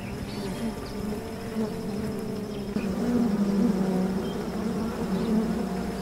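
Many honeybees buzzing together: a steady, low hum that swells a little about three seconds in.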